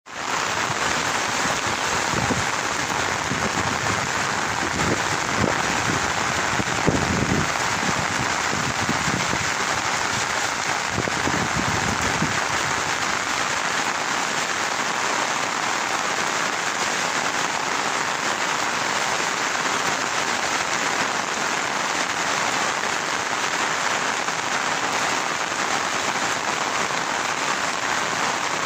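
Steady rain falling on wet grass and standing water in flooded fields, a continuous even hiss. Several low rumbling surges come and go during the first twelve seconds or so.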